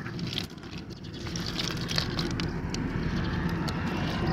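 Snail shells clicking and rattling against each other as a muddy cast net is pulled and shaken out over a pile of snails, with scattered sharp clicks over a low background rumble.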